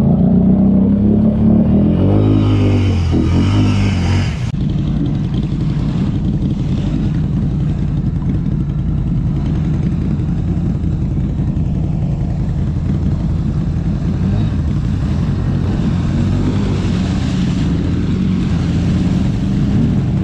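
Can-Am ATV's V-twin engine revving up and down as it pushes through deep water, then running steadily while the water rushes and splashes around the machine.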